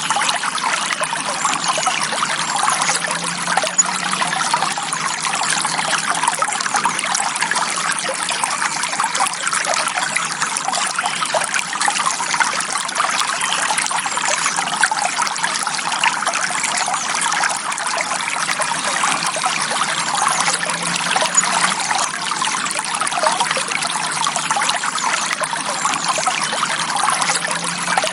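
Shallow forest stream flowing and trickling over stones, a steady babbling with no letup.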